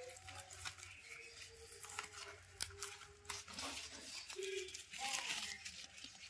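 Rustling and crinkling of plastic packing material with scattered sharp clicks as a young fruit plant, its stems bound with plastic strapping, is handled for packing. The rustling grows louder about five seconds in.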